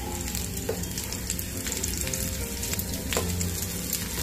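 Potato tikkis shallow-frying in hot ghee on a tawa, with a steady sizzle full of fine crackles while they are turned over with spatulas. A couple of sharper clicks stand out, about a second in and again about three seconds in.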